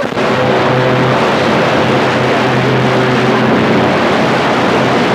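CB radio receiver static: a steady, loud hiss with faint steady tones buried in it, heard between transmissions.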